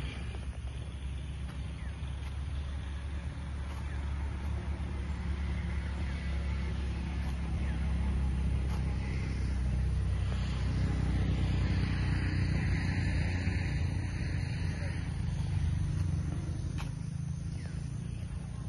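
Low, steady rumble of a motor vehicle on the move, engine and road noise, swelling louder through the middle and easing off near the end.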